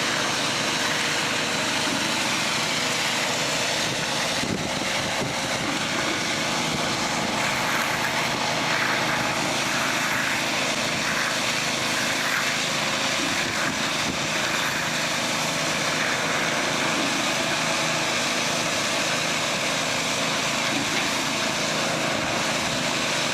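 A machine's engine running steadily, a constant even drone with no change in speed.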